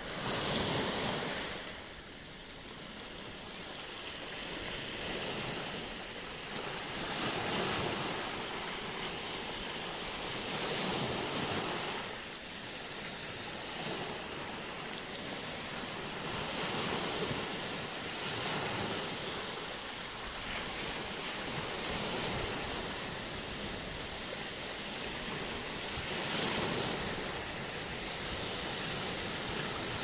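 Small sea waves breaking and washing up a pebble and rock shore, the surf swelling and fading again every three to four seconds.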